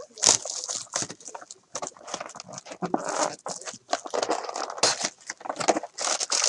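Foil Panini Prizm football card packs crinkling and rustling as they are pulled out of the box and handled in a stack, a dense run of irregular crackles.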